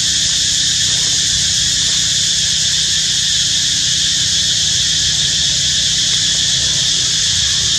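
Steady high-pitched insect chorus, unchanging throughout, over a low steady hum.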